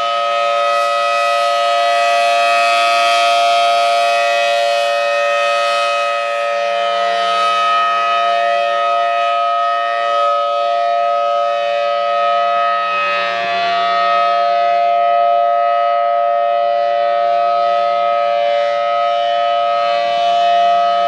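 Federal Signal Thunderbolt 1000T outdoor warning siren sounding a steady, unbroken tone, held at one pitch throughout, with only gentle swells in loudness.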